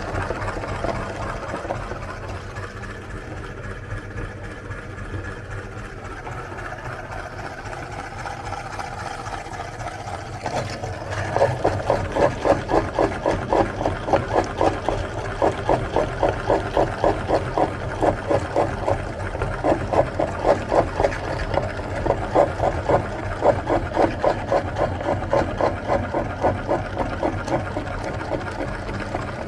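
Meat grinder running with a steady mechanical hum; about eleven seconds in it turns into a loud rhythmic churning of roughly two to three pulses a second.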